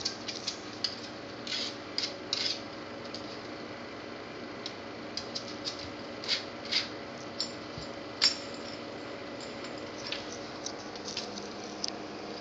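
A dog pawing and shifting about on a tile floor: scattered light clicks and taps at irregular intervals, the sharpest about eight seconds in.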